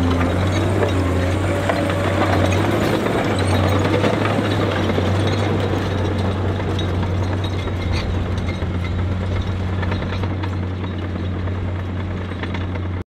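Komatsu D51EX-22 crawler dozer at work: its diesel engine drones steadily under the crunch and clatter of its steel tracks and blade on crushed limestone, growing slowly fainter as the machine moves away.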